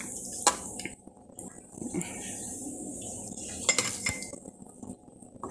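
Metal ladle clinking a few times against an aluminium pot and a glass jar while cooked zucchini slices and their liquid are ladled into the jar. The clinks come once about half a second in, in a quick cluster later on, and once more near the end.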